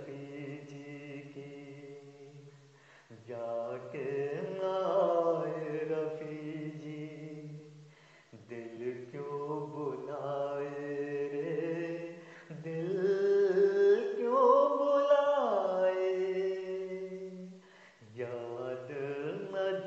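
A man singing long, drawn-out held notes in several phrases with short breaks between them. Past the middle one phrase climbs to a higher, louder note before settling back down.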